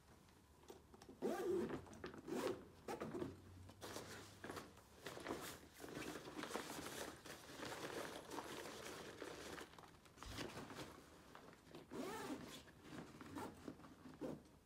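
Zippers being pulled and fabric stretcher bags rustling as they are closed and folded by hand, in a run of short rasping strokes.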